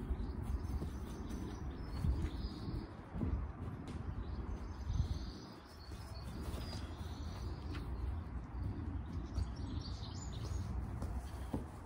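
Birds chirping on and off over a constant low rumbling noise, with a few faint knocks from a football being kicked on grass.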